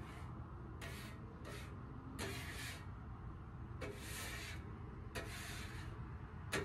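Grill brush scrubbing the grill grates in separate rasping strokes, about five of them roughly a second apart, over a steady low rumble.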